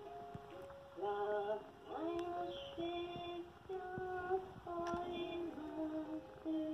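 VTech Lumi sheep baby mobile playing a lullaby through its small speaker: a simple sung melody, one held note after another, each about half a second long. A couple of light clicks come in around two and five seconds in.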